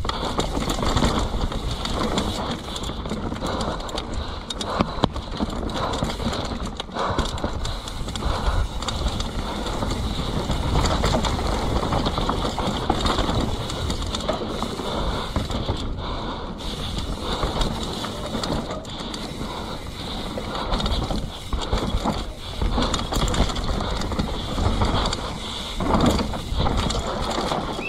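Mountain bike descending a dirt forest trail at speed: tyres running over dirt and dry leaves, with the constant rattle and clatter of the bike's chain and frame over bumps.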